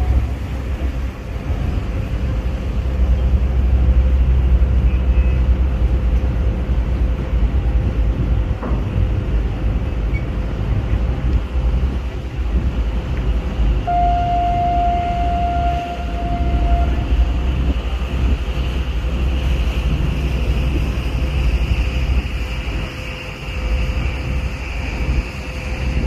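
Steady low rumble of the ferry's engines over the wash of water. About fourteen seconds in, a ship's horn sounds one steady note for about three seconds.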